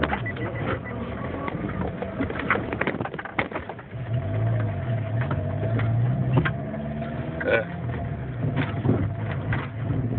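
Car engine running as the car drives off, its pitch rising and falling, with scattered clicks and knocks over it.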